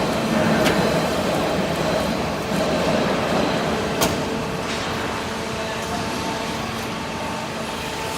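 Copper wire baler press machine running: a steady mechanical noise with faint steady tones. Two sharp clicks stand out, one just under a second in and a louder one about four seconds in.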